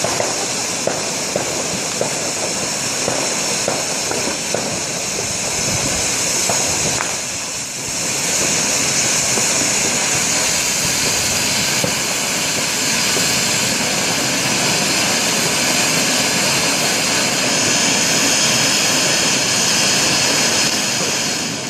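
Fireworks going off: a loud, continuous hissing with a few sharp pops in the first seconds, dipping briefly about seven seconds in before resuming.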